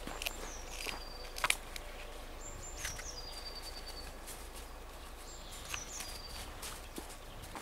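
A small songbird calls three times, each call a brief high note stepping down to a held, steady whistle. Under the calls are a few light crunches and clicks from the dog moving about in the snow, the sharpest about a second and a half in.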